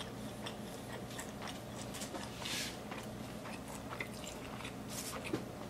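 A person chewing a mouthful of bacon cheeseburger: soft, wet smacking and small mouth clicks.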